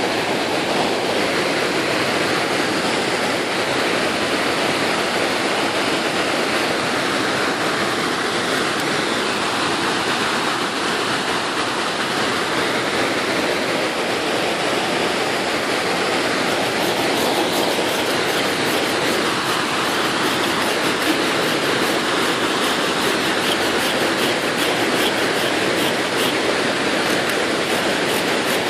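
Strong wind blowing across the camera microphone: a loud, steady rush of wind noise.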